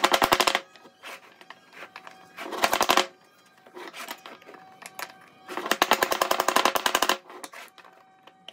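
Three bursts of fast, evenly spaced clattering taps, about fifteen a second: one at the start, a short one near three seconds in, and a longer run of about a second and a half in the second half.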